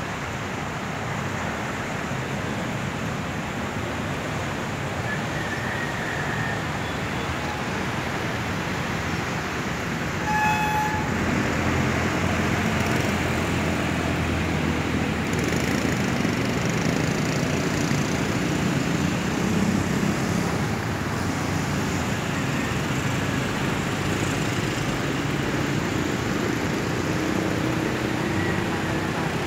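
Street traffic: vehicle engines and tyres running steadily, with a short horn toot about ten seconds in, followed by a louder low engine rumble as a vehicle goes by.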